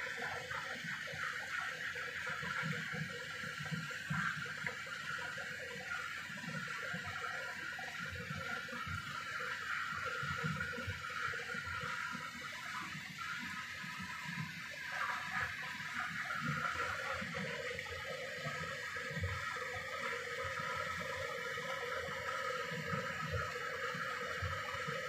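Creamy garlic sauce simmering and bubbling in a frying pan while a spoon stirs it, with irregular small pops and gurgles over a steady hiss.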